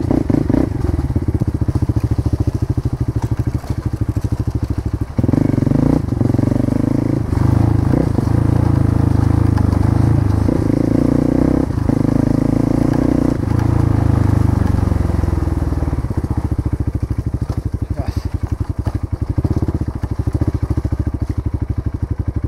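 Motorcycle engine running as the bike is ridden, its note stepping up and down several times in the middle as the throttle and gears change, then settling.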